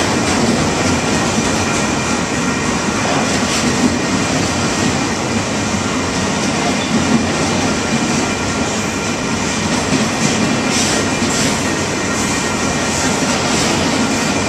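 Freight train of enclosed autorack cars rolling past close by: a steady noise of steel wheels on the rails with faint high-pitched ringing and a few sharper clicks about ten seconds in.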